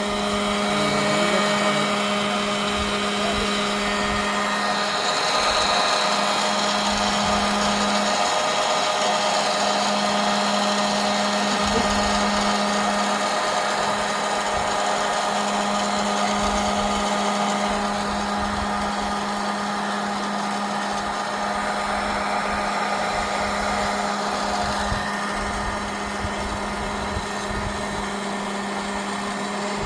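Small electric popcorn machine running with a steady motor hum over a constant rush of air.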